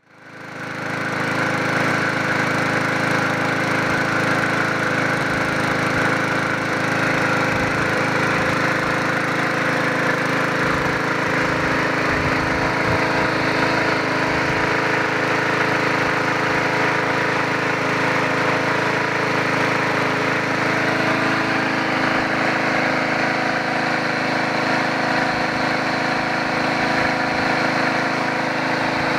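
Briggs & Stratton single-cylinder four-stroke engine on a Yard Machines (MTD) 22-inch push mower running at a steady speed. The sound fades in over the first second, then holds level.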